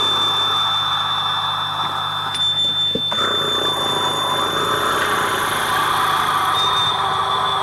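Steady drone with a sustained high, thin whistling tone over a low hum, and a single knock about three seconds in.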